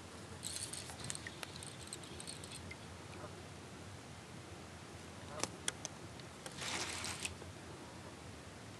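Spinning reel being cranked in short spells while a large northern pike is on the line, with two sharp clicks a little past halfway.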